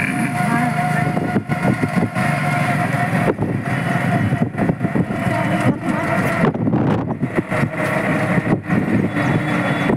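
A vehicle running along a road, heard from on board: steady engine and road noise broken by frequent short knocks and rattles.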